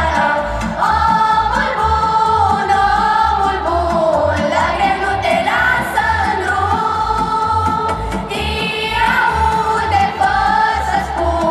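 A Romanian Christmas carol (colind) sung over musical accompaniment with a steady low beat.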